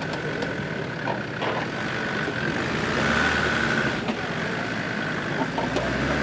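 Land Rover Discovery engine running at low revs as it crawls slowly over rutted off-road ground, getting a little louder about halfway through. A steady high whine runs underneath.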